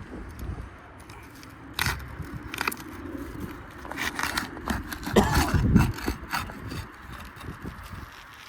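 Scraping, crackling and sharp clicks of hands and tools working asphalt roof shingles, lifting them loose around a roof vent. A few separate clicks come early, then a busier, louder run of scraping and knocking past the middle that dies down near the end.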